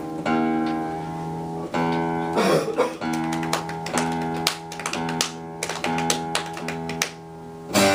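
Guitar being tuned: strings plucked one after another and left to ring, the same few notes struck again and again.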